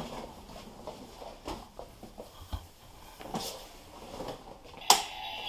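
Scattered light knocks and clicks of a boxed toy car being handled on a wooden table, with a sharper knock near the end.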